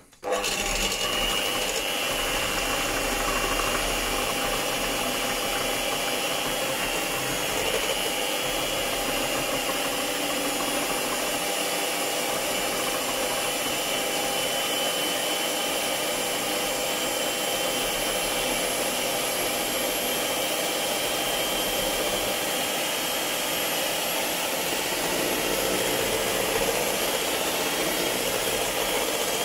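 Electric hand mixer running steadily, its beaters whipping cream in a metal bowl. It switches on right at the start and keeps an even whir throughout.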